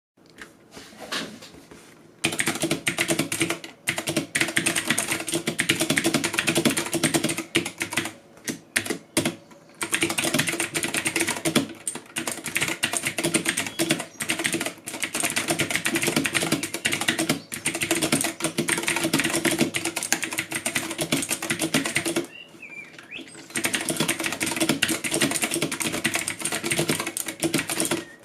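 Typing on a mechanical keyboard: rapid, dense clacking of key switches, picked up by a built-in microphone. The keystrokes start sparse, run continuously, stop for about a second a little past twenty seconds in, then resume at full speed.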